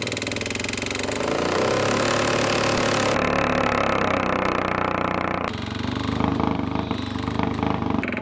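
Big motorcycle engine being revved hard: the pitch climbs to high revs and is held there, then drops back to a lower, uneven running, with abrupt changes in the sound partway through.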